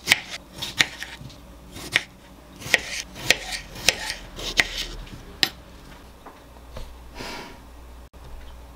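Kitchen knife cutting cherry tomatoes in half on a wooden plate: a string of sharp taps as the blade goes through each tomato and meets the wood, about one or two a second. The taps stop about five and a half seconds in.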